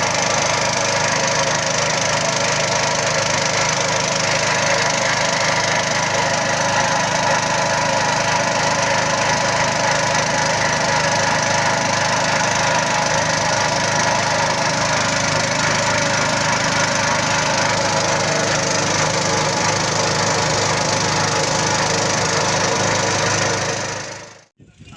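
A loud, steady mechanical drone at a constant pitch, like a running motor, that fades out quickly near the end.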